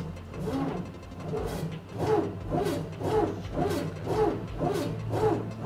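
Bizerba GSP HD automatic slicer slicing in auto mode: the blade motor hums steadily while the carriage drive gives a rising-and-falling whine with each stroke. The strokes come about once a second, then about twice a second from roughly two seconds in.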